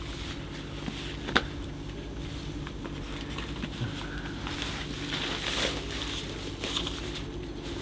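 Rustling and handling of a disposable protective coverall, respirator mask and ear protection as they are put on, with one sharp click about a second and a half in, over a steady low hum.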